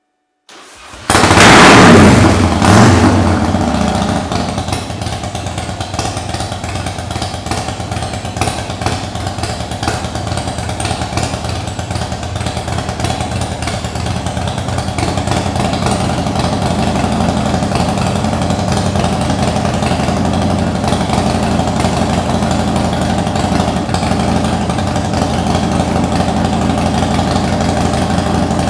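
A 2005 Harley-Davidson FXDX Dyna Super Glide Sport's Twin Cam 88 V-twin, cold after a winter's storage, cranks briefly and fires about a second in. It is revved twice and then settles into a steady idle.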